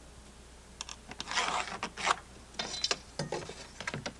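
Short scraping strokes and a run of ratchet-like clicks from hand tools marking stud lines up the wall sheathing.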